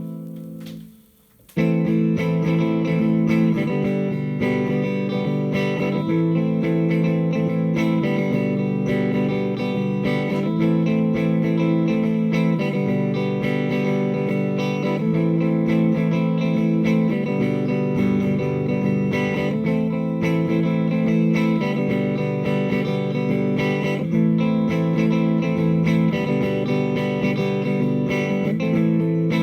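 Electric guitar played through a Hughes & Kettner Attax Metroverb 50-watt transistor amp. A chord fades out with a short pause about a second in, then steady chord playing follows in a repeating pattern that changes roughly every two seconds.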